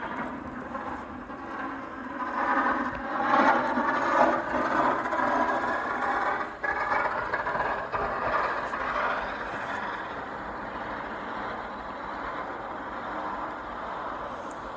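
Tractor engine running while plowing snow, loudest from about two to five seconds in, then running steadily and a little quieter.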